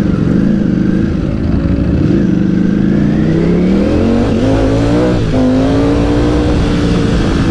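Ducati Panigale V4 S's V4 engine accelerating hard, its pitch climbing in first gear, then dropping abruptly about five seconds in at the upshift to second and pulling on again.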